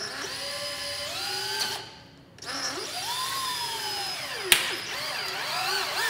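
DeWalt cordless drill driving a wood screw into the plastic plug in the end of a motorcycle foot peg, to pull the plug out. The motor runs in two spells, stopping briefly about two seconds in, its pitch rising and falling, with a sharp click about four and a half seconds in.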